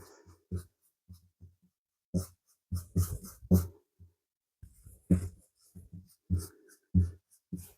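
Irregular soft knocks and taps, a dozen or so, from handling scone dough and a cutter on a kitchen worktop.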